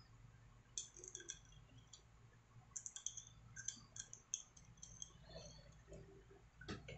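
Faint, scattered light clicks and ticks of a Stanley hand riveter being handled and turned over in the hands, with a louder knock near the end.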